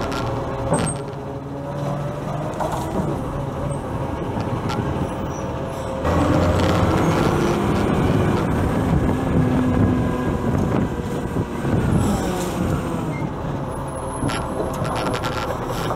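Side-loader garbage truck's diesel engine running as the truck drives between bins, getting clearly louder about six seconds in as it pulls away along the street.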